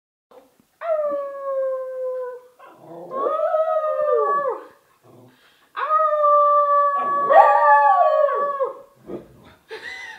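Dog howling: about four long drawn-out howls, each held and then sliding down in pitch at its end.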